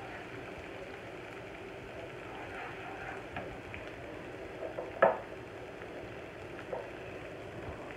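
Chopped garlic sizzling steadily in hot oil in a non-stick karahi as it is fried to a light brown, stirred with a wooden spatula. A single sharper knock comes about five seconds in.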